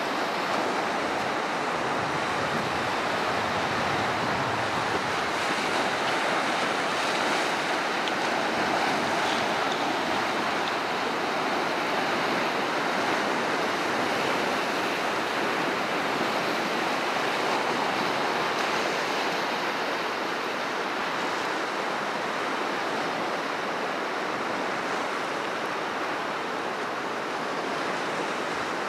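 Sea surf washing over a rocky shore, a steady rushing hiss, with some wind.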